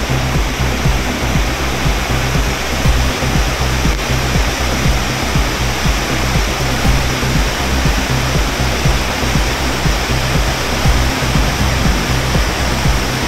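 Floodwater rushing fast across a railway track and its ballast, a steady loud roar of churning water.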